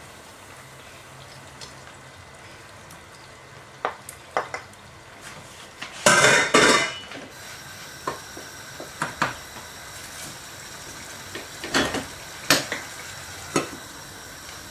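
Cooking in an aluminium pot on a gas stove: a wooden spoon knocking and stirring through the curry over a low steady sizzle. About six seconds in there is a loud, noisy rush lasting about a second. Scattered sharp metal clinks follow, the last as the lid goes onto the pot.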